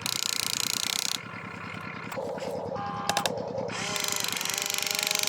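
Small electric motor and gears of a radio-controlled construction toy whirring in a fast, even buzz, with a louder hiss for about the first second and again near the end.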